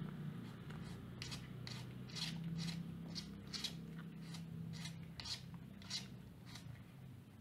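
Cat eating and licking food off a small metal plate: a string of short, crisp, wet clicks, about two a second, over a low steady hum.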